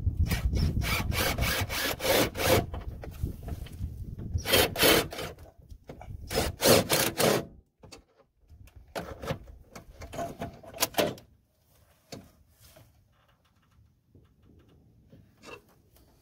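A socket ratchet worked in quick back-and-forth strokes, loosening the 11 mm clamps on an intercooler pipe. It comes in several loud bursts over the first half, then fainter clicks and scrapes.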